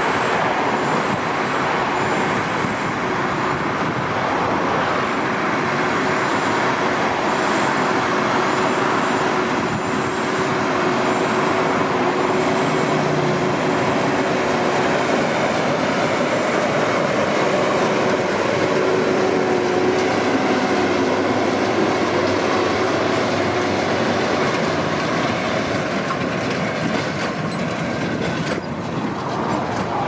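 Massey Ferguson S8740 tractor's six-cylinder diesel engine working under load as it pulls an MF 2270XD large square baler baling hay, with the running baler adding its mechanical clatter. The rig drives past close by, giving a steady, loud din with a constant hum.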